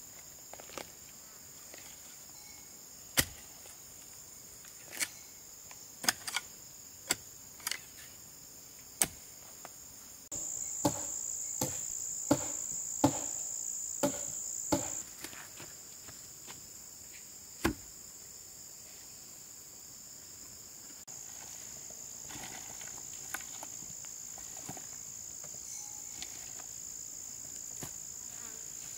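Insects chirring steadily in a high, even drone, with sharp knocks at uneven intervals, coming in a quick run between about ten and fifteen seconds in.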